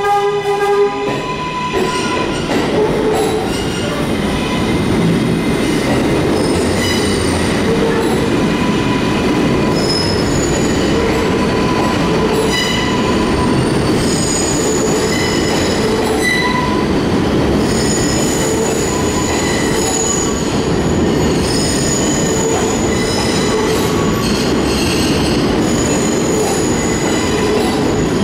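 R188 subway cars passing a station platform, with a steady rumble of steel wheels on rail and high-pitched wheel squeal that comes and goes every second or two. A horn blast cuts off about half a second in. The sound echoes in the underground station.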